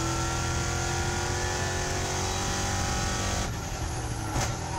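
EuroNASCAR Ford Mustang's V8 racing engine under full throttle, its note climbing slowly in pitch as the car accelerates. About three and a half seconds in the note drops away as the throttle comes off.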